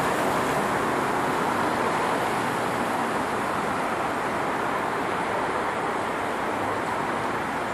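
Steady street traffic noise on a wet road: a constant hiss from vehicles moving over rain-wet asphalt, with no distinct engine or horn standing out.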